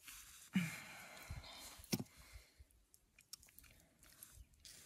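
Faint, close handling sounds: a rustle and a sharp click, then scattered small ticks, as hands clean debris off a fishing hook and line.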